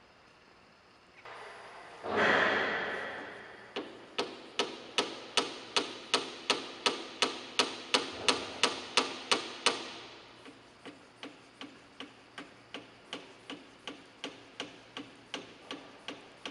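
DoAll G1 hydraulic surface grinder running in automatic. A loud burst of machine noise about two seconds in fades away, then the machine clicks in an even, rapid rhythm of nearly three clicks a second, louder at first and quieter from about ten seconds in.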